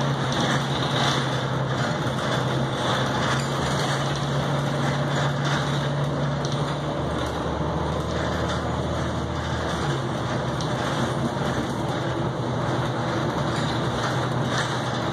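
Articulated Neoplan AN460A diesel bus heard from inside the passenger cabin while under way: a steady engine drone over a broad hiss of road and cabin noise. The engine note drops lower about seven seconds in and comes back up about three seconds later.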